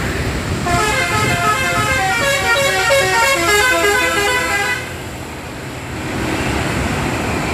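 Telolet musical air horn on the Sudiro Tungga Jaya bus STJ-099 'Draka' playing a fast 'mengular' (snaking) tune of short stepped notes for about four seconds, starting about a second in and stopping suddenly. A low engine and traffic rumble runs underneath.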